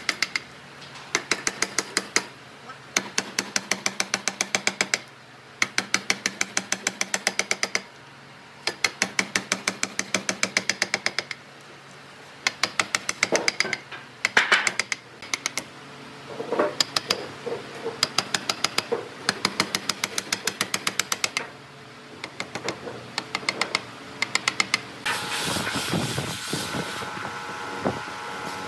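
A steel chisel is driven into wood with rapid hammer taps, cutting out a round boss on a wooden bicycle seat. The taps are sharp and come about seven a second, in bursts of a few seconds with short pauses between. Near the end the tapping gives way to a steady hiss with a faint hum.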